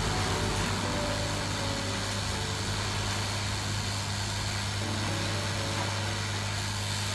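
A steady low hum with an even hiss over it, unchanging throughout, with no distinct strokes or clicks.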